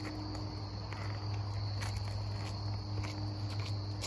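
Steady high-pitched insect chorus over a steady low hum, with scattered faint clicks and shuffling steps.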